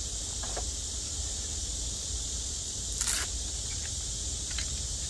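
Steady high-pitched insect chorus, probably crickets, with a few faint clicks and one short clatter about three seconds in as the folding camping chair's frame and parts are handled.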